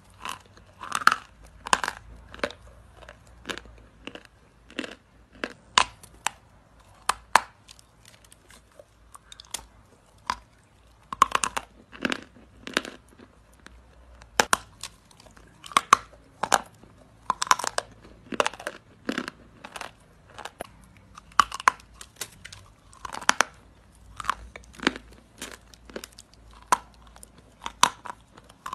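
Close-miked chewing of hard eating chalk in the mouth: sharp, irregular crunches coming in clusters, with quieter chewing between them.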